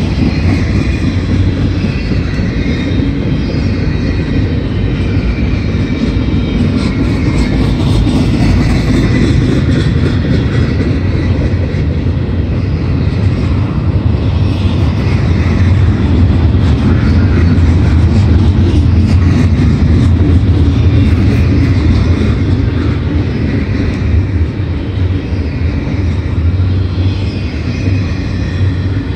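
Double-stack intermodal freight cars rolling past on a CSX freight train: a loud, steady rumble of steel wheels on the rails, swelling a little about halfway through.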